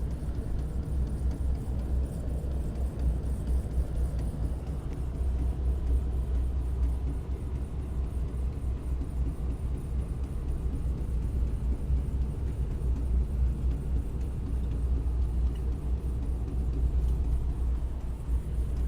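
Steady low rumble of a semi truck driving on an icy road with tire chains on its wheels.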